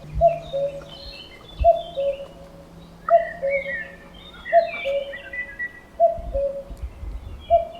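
Common cuckoo calling its two-note "cu-ckoo", high note then lower note, repeated about every second and a half, with other small birds chirping higher in the background.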